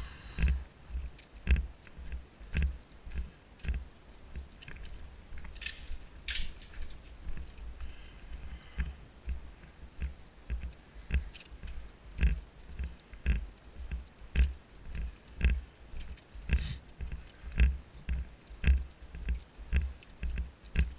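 Footsteps of a person walking with a body-worn camera: even low thumps about twice a second, with light clinks of rescue hardware such as carabiners and other metal gear.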